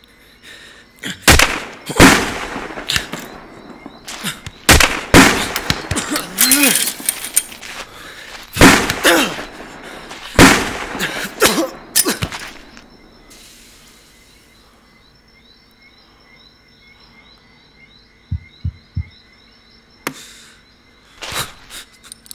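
Sound-designed gunshots and impact hits in a shootout, fired in clusters of loud blasts with a ringing tail over the first twelve seconds. After a lull with a few low thumps, more shots come near the end.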